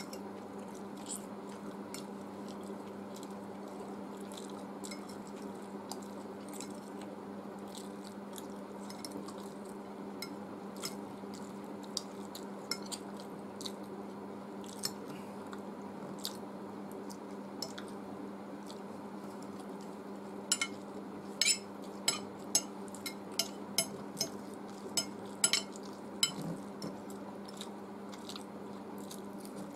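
Eating sounds of chowmein noodles: chewing and mouth noises with scattered light clicks of a steel fork against a glass plate, and a quick run of louder clinks in the second half. A steady low hum runs underneath.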